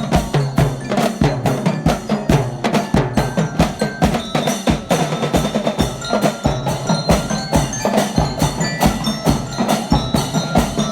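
Percussion-heavy music: quick, steady drum strokes with bright bell-like mallet notes over them.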